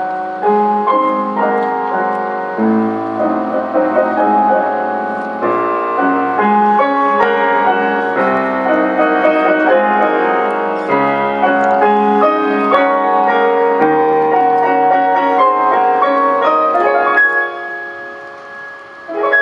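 Tango music with piano prominent, playing continuously and growing quieter near the end.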